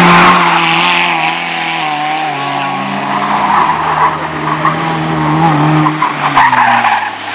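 Several racing engines running hard together on a cinder track, their pitches shifting up and down, with a hiss of sliding. The sound fades near the end.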